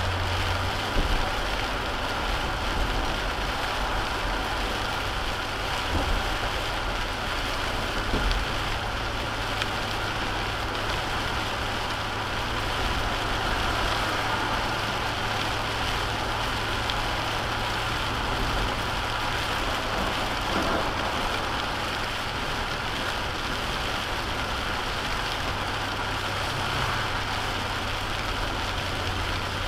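Rain pattering on a moving car, mixed with the hiss of tyres on a wet road and a steady low hum, heard from inside the car. A few faint knocks sound now and then.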